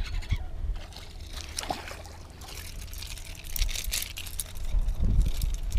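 Splashing and dripping water as a hooked Moses perch is reeled up and lifted out of the river on light fishing line, with scattered sharp clicks.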